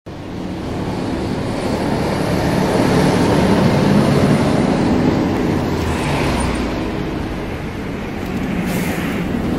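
Steady hum of city traffic, swelling in level over the first few seconds.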